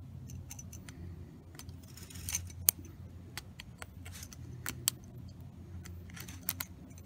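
Small metal tweezers clicking and scraping against the iPad 2's metal frame and shielding as the Wi-Fi antenna cable is pulled out: irregular sharp clicks and short scrapes, the sharpest nearly three seconds in, over a steady low hum.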